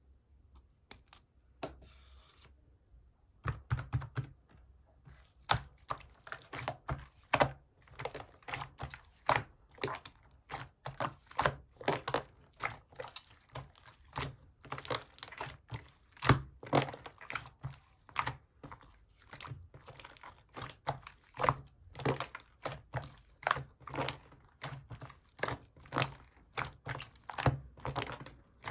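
Hands kneading and pressing slime, making a run of sticky clicks and pops, several a second, that starts about three seconds in.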